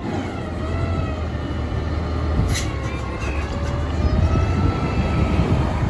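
Natural-gas engine of a front-loading garbage truck running while it stands at the curb: a steady low rumble, with a faint wavering whine over it and a brief click about halfway through.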